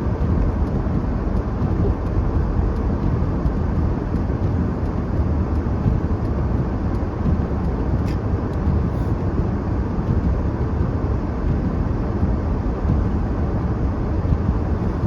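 Steady car road and engine noise heard from inside the cabin while driving, a dense low rumble without change. A faint click sounds about eight seconds in.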